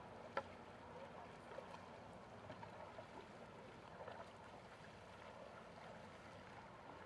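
Near silence: faint outdoor ambience, with one sharp click about half a second in and a few fainter ticks after it.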